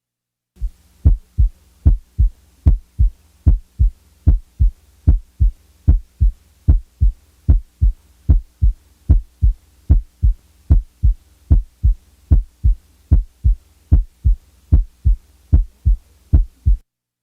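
Heart sounds in a steady lub-dub rhythm, each cycle a loud first heart sound (S1) followed by a softer second heart sound (S2), over a faint steady hum. The loud first sound against the softer second gives the impression of coming down the musical scale.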